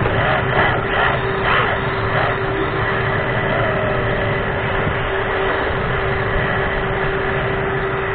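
RC drift car running, heard from a camera mounted on the car: a steady whine from its motor and drivetrain over an even rumble of tyres on the floor.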